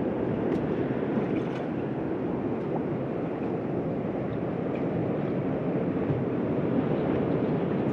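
Steady wind and water noise around an open fishing boat, an even rushing with no distinct events.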